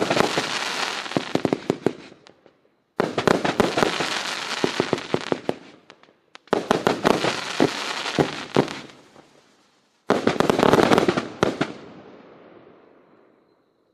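'The Great Wall' fireworks cake (battery) firing: four bouts of rapid, crackling bangs. Each bout starts suddenly and fades over a couple of seconds, with short gaps between them.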